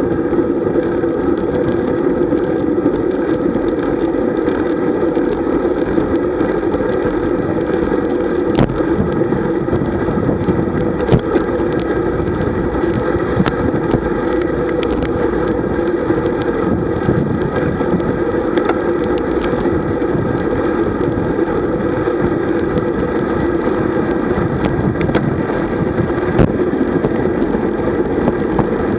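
Steady wind rush and road-tyre noise on the mic of a camera riding a road bike at speed, with a faint steady hum and a few short clicks from bumps in the road.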